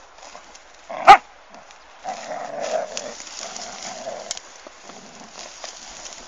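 A dog worrying a discarded mattress: one sharp bark about a second in, the loudest sound, then rough dog noises and the rustle and scrape of the mattress cover as it tugs at it.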